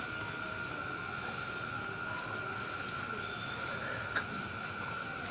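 Night-time chorus of crickets, a steady high-pitched drone with no break, with one faint click about four seconds in.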